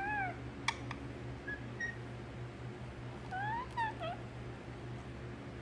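Pet parrot making soft, whistled, meow-like calls while its head and neck are rubbed: short calls that rise and fall in pitch at the start, a sharp click under a second in, and a pair of longer rising-then-falling calls about halfway through.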